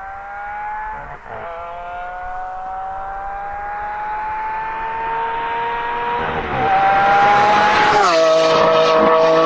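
Lamborghini Aventador's V12 engine accelerating through the gears. Its note climbs steadily and drops sharply at each upshift, about a second in, just past six seconds and about eight seconds in. It grows louder over the last few seconds.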